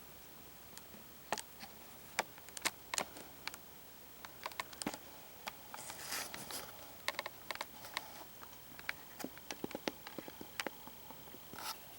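Irregular sharp clicks, taps and brief rustles of gear being handled close to the microphone, as when setting up equipment inside a fabric hunting blind.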